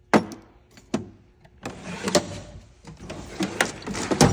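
A few sharp clicks, then about two and a half seconds of rattling, clattering metal as tools are handled and a steel tool-chest drawer is moved.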